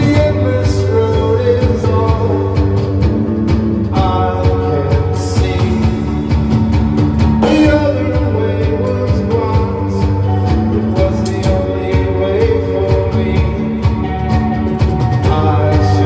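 A three-piece rock band playing live: reverb-drenched echo guitar over bass and a steady drum beat.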